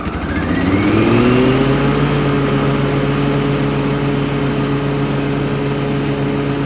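A Toro TimeMaster 30-inch mower's 223 cc engine running. Right at the start it dips briefly with a few clicks, then its pitch climbs over about two seconds and settles into a steady run.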